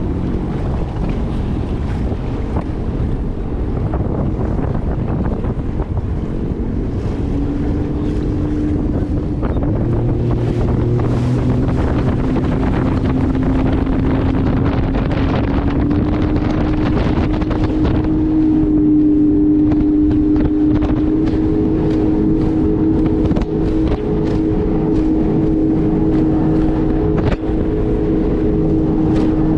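Jet ski engines running at speed with wind buffeting the microphone and water rushing. The engine pitch climbs over several seconds about a quarter of the way in, then holds steady.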